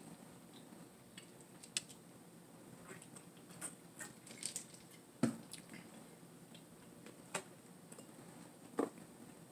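Quiet eating sounds at a table: chewing and mouth sounds, a drink from a bottle, and scattered small clicks and knocks of handling food and containers. The loudest knock comes about five seconds in.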